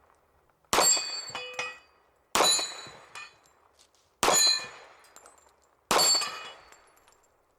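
Four pistol shots about 1.7 seconds apart, each with a ringing clang from a steel plate of a Texas Star target being hit. A few smaller knocks follow between the shots.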